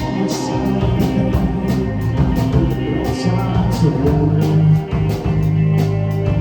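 Rock band playing live: guitars and drums, with a cymbal keeping a steady beat of about four strokes a second.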